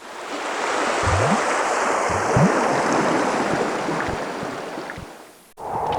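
Rushing water: a steady, loud wash of flowing or surging water with a few low gurgles. It swells in, fades away, and is cut off abruptly just before the end, when a different water sound starts.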